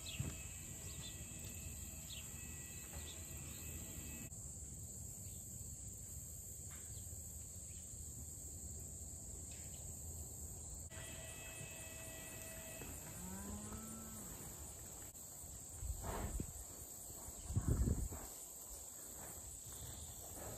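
Steady high-pitched chorus of crickets and other insects. A short low call rises then falls a little after halfway, and two bursts of dull thumping come near the end.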